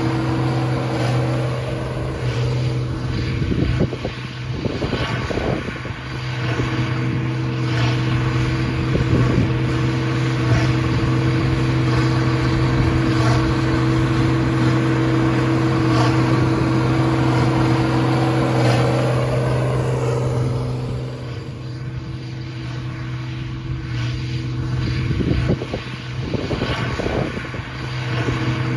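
International 5488 tractor's turbocharged six-cylinder diesel running steadily under load while it powers a New Holland BB940 3x3 big square baler through the PTO, with the baler's mechanism working along with it. The steady hum eases somewhat about three-quarters of the way through, then picks up again.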